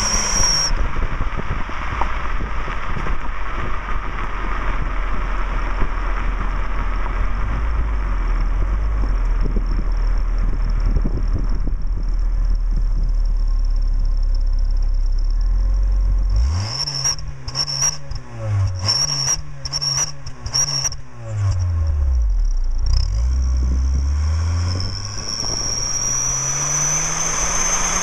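Saturn SL2's four-cylinder engine fitted with a fake turbo whistler in the exhaust tip. The whistle sounds as the engine accelerates at the start, then drops out while the engine runs low and steady. It comes back as a string of short whistles with a series of quick revs, and rises again in pitch as the engine accelerates near the end.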